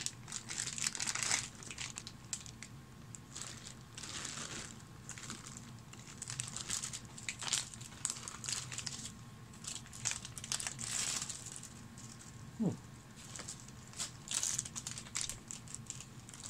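Clear plastic bags crinkling and rustling in irregular bouts as hands handle and open bagged plastic miniatures. One short falling squeak comes about thirteen seconds in.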